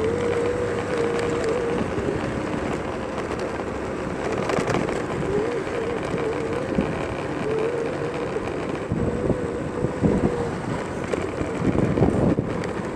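Street traffic noise with wind buffeting the microphone. A thin, wavering whine comes and goes over it.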